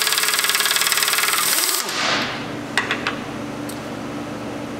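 Impact wrench hammering as it loosens a connecting-rod cap bolt; it runs for about two seconds, winds down and stops, followed by a few light metal clinks.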